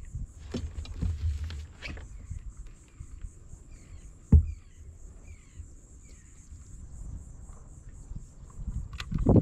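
Handling noises in a kayak: small clicks and rustles, with one sharp low knock against the hull about four seconds in and another knock near the end.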